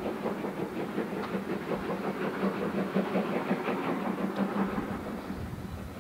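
A train's wheels clattering over the rail joints out of sight, over a steady low hum, dying away near the end.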